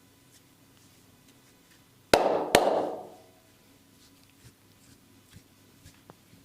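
Two loud, sharp slaps of the hands on bare skin during a massage, about half a second apart, each with a brief ring after it. Faint soft clicks from the hands working come before and after.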